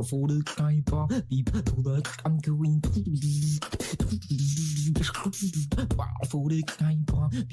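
Solo beatboxing into a microphone: rhythmic mouth percussion with sharp click and snare-like hits over held, pitched low bass notes.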